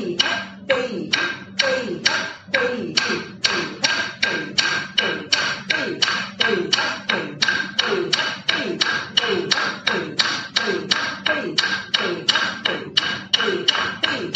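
Even rhythmic tapping, about three strikes a second, keeping the beat for the Kudhithu Mettu adavu, a Bharatanatyam footwork step, with a steady ringing tone under it.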